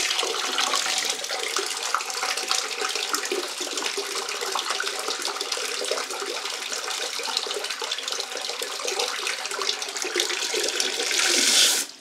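Water from a garden hose gushing straight into a toilet bowl, splashing and swirling as the bowl flushes itself down without the tank. The rush swells just before the end, then stops suddenly as the hose valve is shut.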